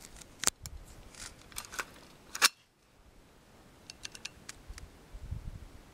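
Small metallic clicks and clacks of a scoped rifle being handled and readied on its bipod, with one sharp, louder clack about two and a half seconds in and a quick run of light ticks near the middle.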